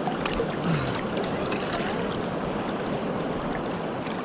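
Hiwassee River water rushing steadily over its bed.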